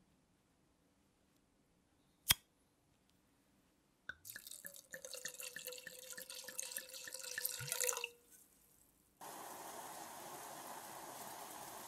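A cork comes free of a wine bottle under a waiter's corkscrew with one sharp pop about two seconds in. White wine is then poured from the bottle into a stainless steel saucepan, a splashing pour lasting about four seconds. From about nine seconds in comes the steady hiss and bubbling of the wine boiling hard in the pan.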